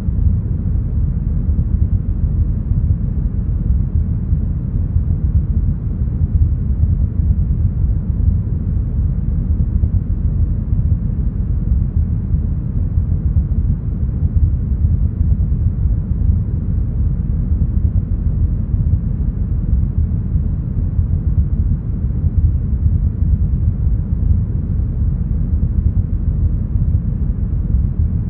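Deep, smoothed brown noise: a steady, even rumbling hiss with most of its weight in the low bass and the highs rolled off, unchanging throughout.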